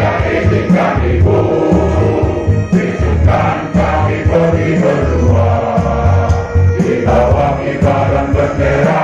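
Islamic boarding school choir singing over a loud, pulsing low accompaniment, without pause.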